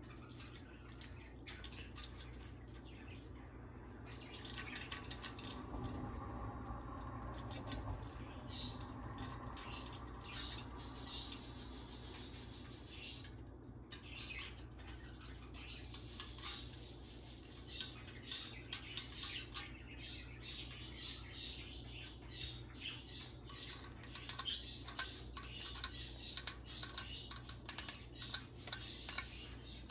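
Goffin's cockatoo picking at an aluminium soda can's pull-tab with its beak: many light irregular clicks and taps of beak on metal, with the bird's squawks and chirps now and then.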